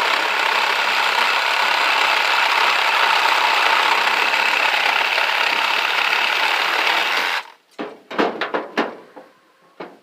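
A power tool runs steadily, cutting into an electric motor being scrapped for its copper windings. It stops about seven seconds in and is followed by a handful of sharp metal knocks and clatters.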